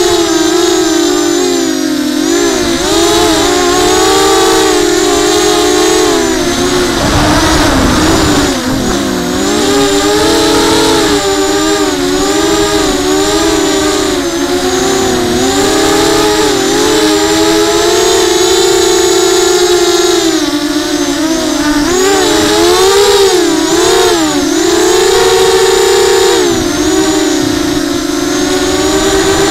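FPV quadcopter's electric motors and propellers whining, several close pitches rising and falling together as the throttle changes. A low rumble from wind on the microphone comes in about seven seconds in.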